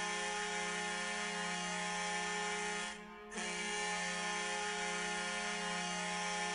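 Detroit Red Wings goal horn sounding a steady, sustained horn tone. It cuts out for a moment about three seconds in, then starts sounding again.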